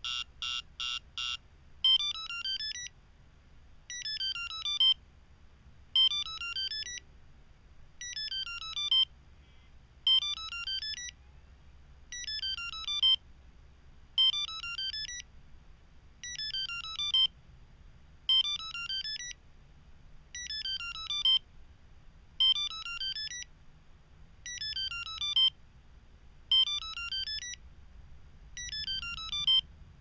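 Viper 5902 two-way remote playing electronic tones: a quick run of about five beeps, then a short jingle (a falling sweep followed by a rising run of tones) that repeats about every two seconds.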